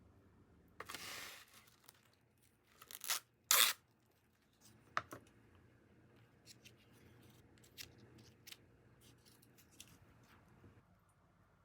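Packaging being torn open: a short rip, then two sharper rips a couple of seconds later, followed by a click and faint handling clicks.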